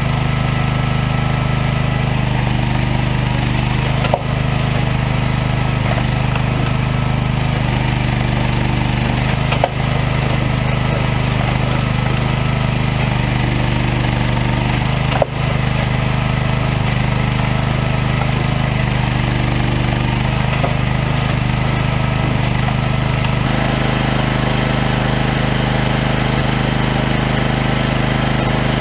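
Firewood processor's engine running steadily, its note shifting in repeated cycles as the machine takes load while working logs. Three sharp knocks come about five and a half seconds apart. The sound changes abruptly near the end.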